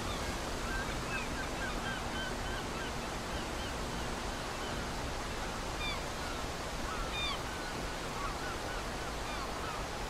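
Wind and water noise on open water, with birds giving many short, repeated calls throughout; a few higher, louder calls come about six and seven seconds in.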